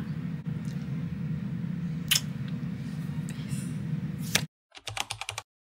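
Quiet room tone with a steady low hum and a couple of light knocks. A sharp click comes about four seconds in, and the sound then cuts off to silence. Near the end there is a short run of quick rattling clicks.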